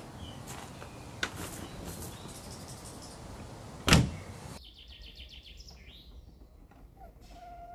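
The driver's door of a 1974 Peugeot 304 Coupé S clicks open, then shuts with a solid thump about four seconds in. Birds chirp in the quieter stretch that follows.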